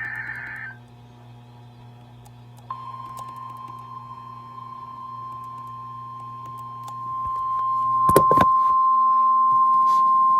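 An Emergency Alert System warning: the end of a screechy SAME digital header burst, then, about two and a half seconds in, the steady single-pitch warning alert tone starts. The tone grows louder about two thirds of the way through, with a few clicks. Together they announce a National Weather Service severe thunderstorm warning.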